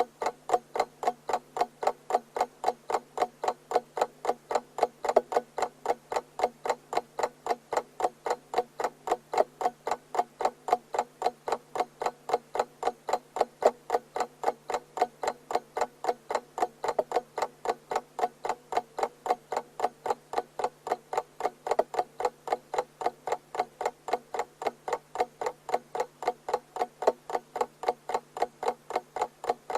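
Alarm clock ticking in a rapid, even rhythm, with a faint steady hum underneath.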